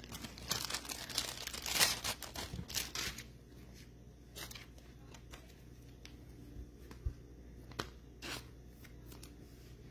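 Thin clear plastic crinkling and rustling in the hands for about three seconds, then a few faint taps and clicks as a trading card is handled in a plastic sleeve.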